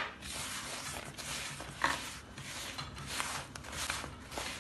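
Hand kneading crushed biscuit crumbs and butter against the bottom of a bowl: a soft, gritty rustling and rubbing, with a brief click a little under two seconds in.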